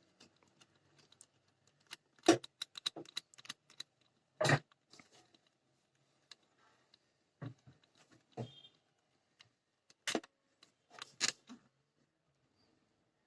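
Scattered sharp metallic clicks and clinks of a screwdriver and small screws or nuts as the fixings of a home theater amplifier's ICs are undone, a handful of louder taps among fainter ones.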